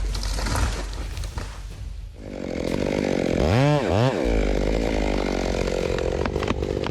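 Stihl MS 880 large chainsaw running. About three seconds in, its engine revs up and drops back twice in quick succession, then holds a steady high speed.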